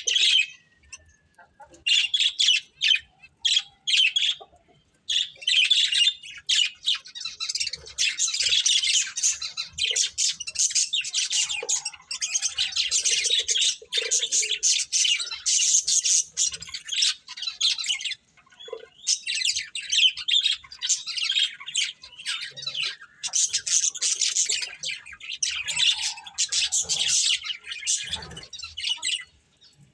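A pair of budgerigars chirping and chattering, a fast jumble of short high chirps and squawks in long runs with brief pauses.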